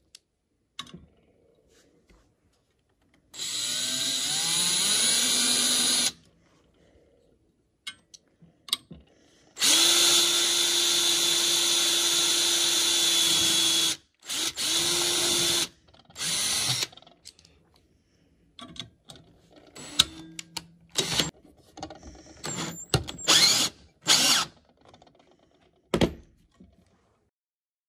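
Cordless drill boring a pilot hole through aluminium square tubing in runs of a few seconds. The first run rises in pitch as it spins up, the longest and steadiest is in the middle, and two short bursts follow. Near the end come a series of short spurts and clicks as a cordless driver runs a self-tapping sheet metal screw into the hole.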